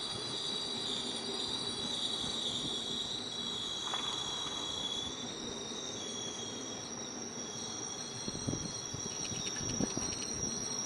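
The Blue Train rolling past on the rails, a steady rumble with a few thumps of wheels over rail joints near the end. Insects keep up a steady high-pitched drone throughout.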